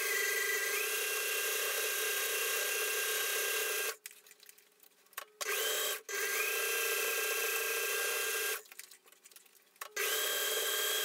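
Singer electric sewing machine running in three runs of a few seconds each, with short stops between them. Its pitch rises as it picks up speed soon after the first two runs start. It is stitching overlapped elastic ends back and forth with a short zigzag stitch.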